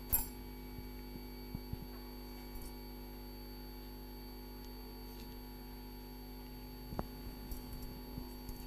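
Steady electrical mains hum with a few faint, short clicks scattered through it.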